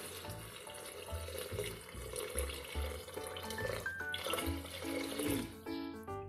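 Water poured in a steady stream from a jug into a pressure cooker full of vegetables, splashing and filling the pot, stopping near the end.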